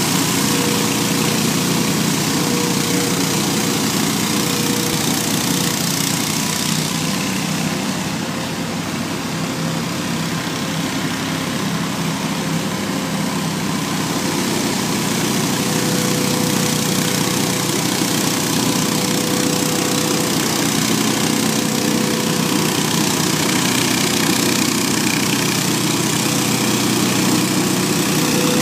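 Hurricane 314 stand-on leaf blower running steadily, its engine drone mixed with the rush of the fan's air blast, dipping slightly in loudness for a few seconds near the middle.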